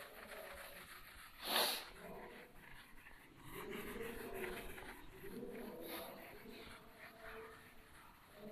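Faint wiping of a handheld duster across a whiteboard, in repeated rubbing strokes. A short, sharp hissing puff comes about one and a half seconds in.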